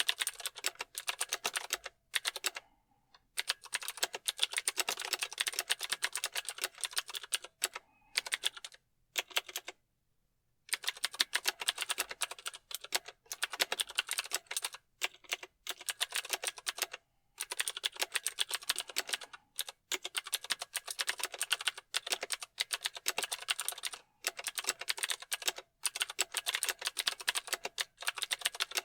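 Fast typing on a mechanical keyboard: rapid, crisp key clicks in runs of a few seconds, broken by short pauses.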